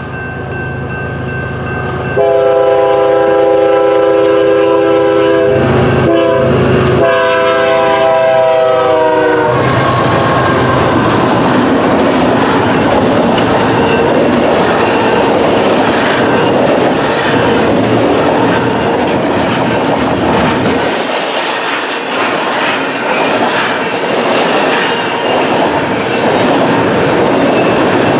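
BNSF diesel freight locomotives approach and sound a multi-tone air horn for a grade crossing, starting about two seconds in. The horn comes in blasts lasting about seven seconds, its pitch dropping as they pass. The double-stack intermodal container cars then roll by with a steady rumble and clatter of wheels on the rails.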